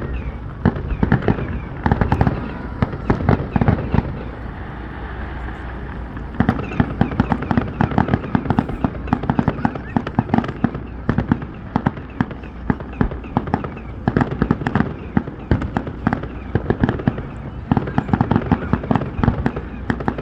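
Fireworks display going off in a rapid, dense barrage of bangs and crackles, easing off briefly about a quarter of the way in before picking up again.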